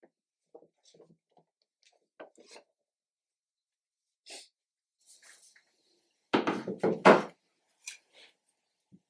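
Wooden boards knocking and clattering against each other and the workbench as they are handled. Scattered light taps, then a quick run of louder knocks about six to seven seconds in.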